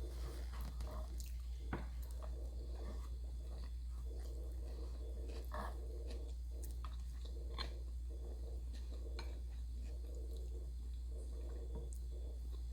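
Close-up chewing and wet mouth sounds of a person eating, with scattered small clicks and smacks over a steady low hum.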